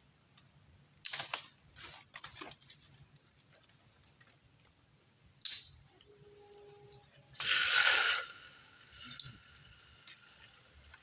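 Cooking gear being handled: a few short rustles and scrapes, then a louder hiss lasting nearly a second about seven and a half seconds in.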